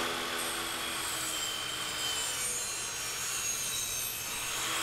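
Table saw running and ripping a wooden board lengthwise, the blade cutting steadily through the wood as the board is fed along the fence.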